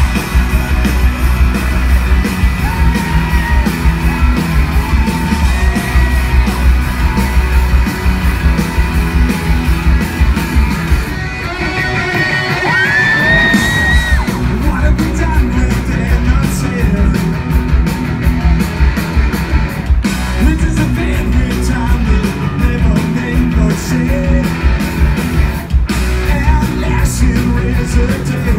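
Live rock band playing a fast, loud song: distorted electric guitars, bass and driving drums, with a lead vocal sung and shouted over them. It is heard from the crowd in a large reverberant arena.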